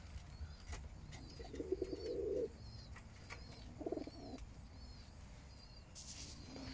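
Racing pigeons cooing, two low coos about a second and a half in and about four seconds in. A high chirp repeats about twice a second behind them.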